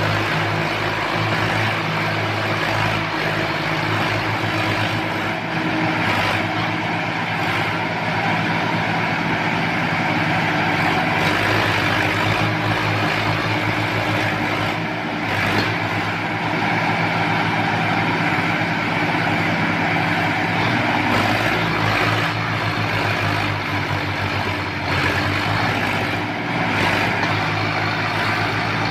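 Two Sonalika tractors' diesel engines running hard under heavy load, pulling against each other in a tug-of-war. A steady, loud engine drone that barely changes.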